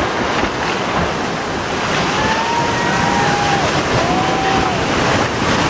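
Whitewater of a river rapid rushing and splashing steadily around and against the bow of an inflatable drift boat as it runs the drop.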